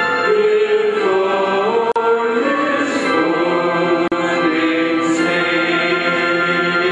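Slow vocal music: voices singing a hymn-like melody in long held notes that step slowly from pitch to pitch. The sound cuts out for an instant twice.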